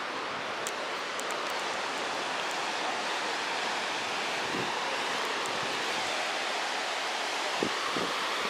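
A steady, even rushing noise that holds at one level throughout.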